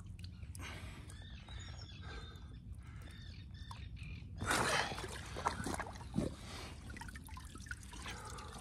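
Water trickling and dripping off a large common carp as it is held and turned just above the lake surface, with a brief louder rush of water about halfway through.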